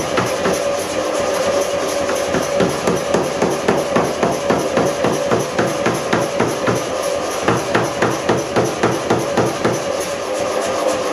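Power hammer forging a red-hot steel billet: a run of rapid, regular blows, about three a second, over the machine's steady running hum.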